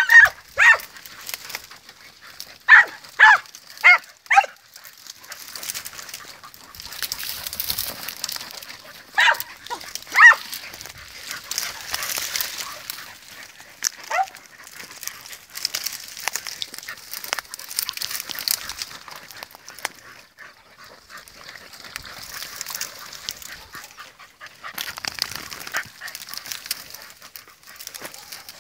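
Podenco hunting dogs barking in short, high yelps: a quick run of four or five about three seconds in, then single yelps around ten and fourteen seconds. Between them, dry brush rustles and crackles as the scrub is pushed through.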